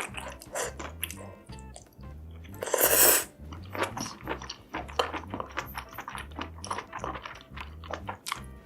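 Close-miked eating sounds: chewing and biting with many short crunchy clicks, and one louder, longer crunching burst about three seconds in, over background music with a steady low beat.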